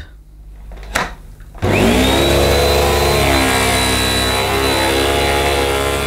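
Goblin upright vacuum cleaner with a click about a second in, then its motor starting half a second later with a whine that rises quickly to a steady high pitch. It then runs steadily and loudly.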